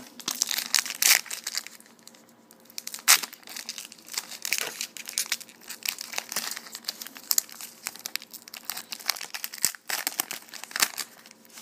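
Foil wrapper of a Panini Gridiron Gear football card pack crinkling and tearing as it is handled and ripped open. The crackling is irregular, with the sharpest bursts about one and three seconds in.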